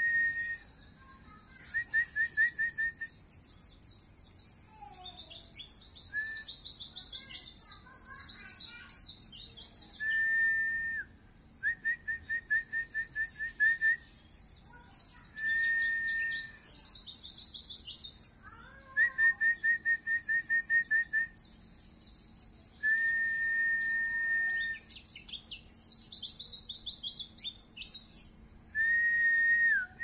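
Caged white-eye (pleci dakun) singing in long, rapid, high twittering bursts. These alternate with lower held whistles and quick runs of short repeated 'wit-wit' notes.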